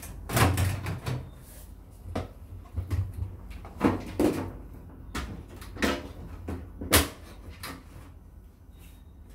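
Irregular knocks and clatters of plastic and metal as the front panel and door of a Samsung front-loading washing machine are handled and lifted off the cabinet, about a dozen in all, the loudest about half a second in and about seven seconds in.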